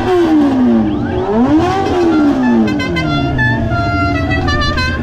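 Racing motorcycles passing at speed, their engine notes rising and then falling in pitch twice as they go by. In the second half come a run of short, higher, stepping engine notes.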